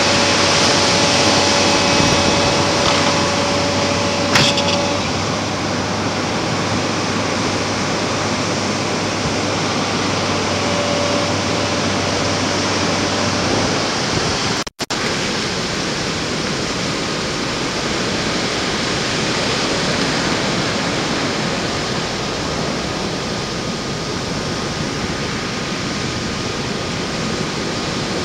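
Heavy surf breaking and washing up the beach, a steady roar of water, with a faint steady hum under it in the first few seconds. The sound drops out for an instant about halfway through.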